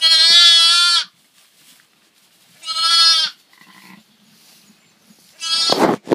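Newborn Texel lambs bleating: two clear, high bleats about two and a half seconds apart, then a rougher, breathier bleat near the end.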